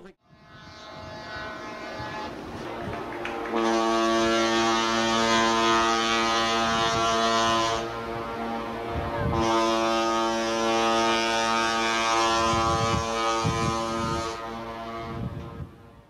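A large passenger ship's horn sounds a long, steady, low blast. It swells over the first few seconds, drops back briefly around the middle, sounds out strongly again with a hiss over it, and fades away near the end.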